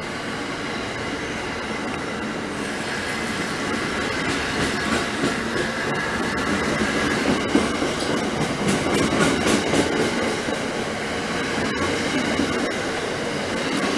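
Amtrak stainless-steel passenger coaches rolling past at speed: a steady rumble and rush of the train, with the wheels clicking rapidly over the rail joints. It grows louder through the middle.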